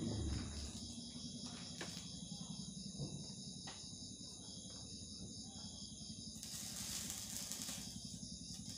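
Night insects chirping in a steady, high-pitched, pulsing chorus, with a few faint clicks and a brief hiss about seven seconds in.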